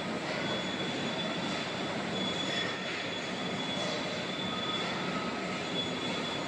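Hydraulic baler press's pump and motor running steadily, a continuous machine hiss with a faint high whine.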